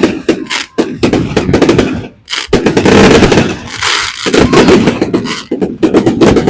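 Fireworks going off in quick succession: a rapid, loud series of bangs and crackles that merges into a continuous crackle about two to four seconds in.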